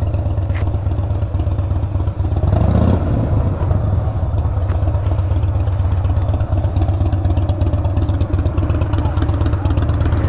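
Honda Rebel 1100 DCT's parallel-twin engine running steadily at low revs, with one brief rise in revs between about two and three seconds in.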